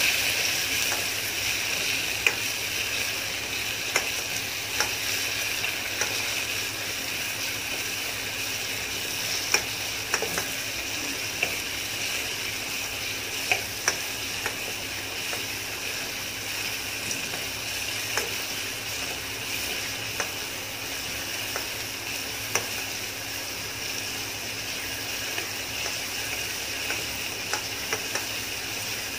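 Chopped onions and tomatoes sizzling as they fry in a stainless steel pan, while a metal spoon stirs them with occasional sharp clinks against the pan.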